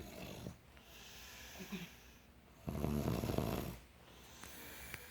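A sleeping person snoring: one long, loud snore about three seconds in, with fainter snoring breaths before it.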